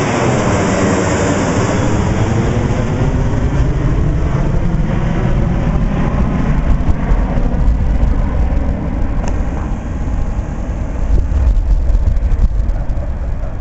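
Boeing 737's twin turbofan engines at takeoff power as the jet passes overhead, a sweeping, phasing whoosh that swoops down in pitch and then settles into a deep, uneven rumble as the aircraft climbs away.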